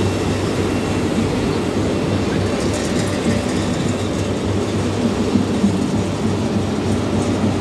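Battenfeld corrugated HDPE pipe extrusion line running: a steady, loud machine drone with a low hum.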